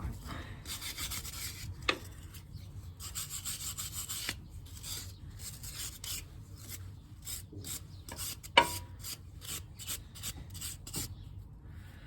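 A brush scrubbing a motorcycle brake caliper in repeated back-and-forth strokes, quickening in the second half. A sharp metallic clink with a brief ring about eight and a half seconds in is the loudest sound, with a smaller one near two seconds.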